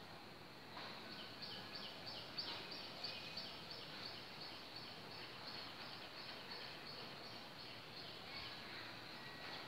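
Faint outdoor ambience with an animal's call: a long, even series of short high chirps, about three a second, starting about a second in and stopping near the end.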